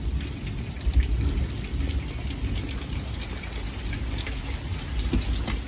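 Steady rain falling on wet pavement and grass, with scattered raindrop ticks.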